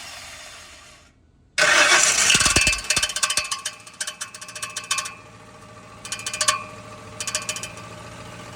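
A 2006 Ford F-150 is started: the engine catches about a second and a half in with a harsh metallic rattle, then idles with repeated short bursts of metallic rattling and scraping. The mechanic traces this noise to the flex plate, which he believes is cracked, with the torque converter bolts rubbing against metal.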